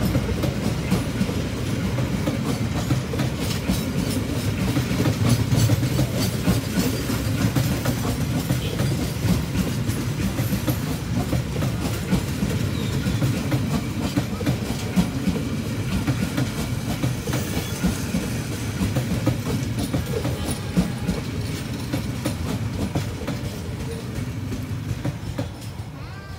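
Argo Bromo Anggrek passenger train's coaches passing close by, steel wheels rumbling and clattering over the rail joints. The sound fades away in the last few seconds as the end of the train goes by.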